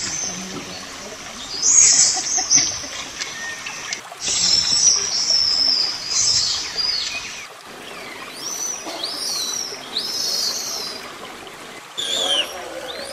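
High-pitched animal calls: harsh, hissing squeals about two seconds in and again from about four to seven seconds, then a run of short, arching whistled notes from a little past halfway.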